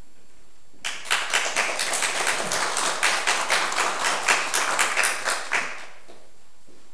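Audience applauding. The applause starts about a second in and dies away after about five seconds.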